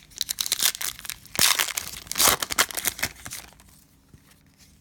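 Cellophane wrapper of a basketball card pack being crinkled and torn open: a dense crackling that stops about three and a half seconds in.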